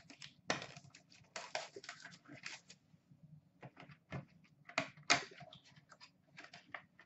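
Handling noises of a cardboard trading-card box being opened and its packaging pulled out: irregular clicks, scrapes and crackles, with a few louder ones about half a second, a second and a half, and five seconds in.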